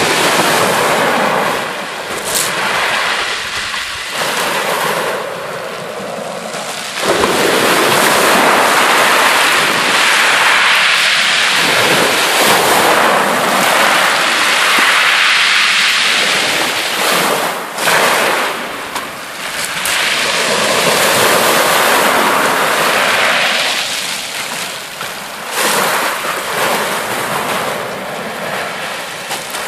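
Small waves breaking on a shingle beach and washing up and back over the pebbles. The surf swells and eases every few seconds.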